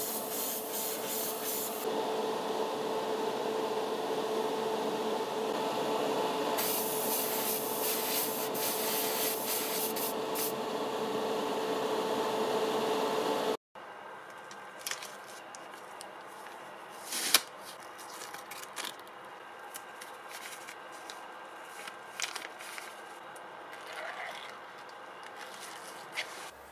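An airbrush hisses steadily while spraying gold paint onto a scale model car body, with a steady hum under the hiss. It cuts off suddenly about halfway through, giving way to quiet handling of masking tape against the model body: faint rustles and scattered small clicks, one sharper click among them.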